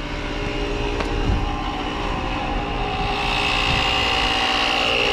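Portable electric tyre inflator running steadily as it pumps air into a flat car tyre, a constant motor drone with a high whine that grows stronger from about three seconds in.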